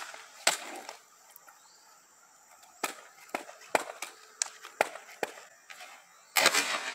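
Skateboard clacking on a hard court surface during freestyle tricks: sharp taps of the deck and wheels, about two a second after a short pause, then a louder clatter about six seconds in.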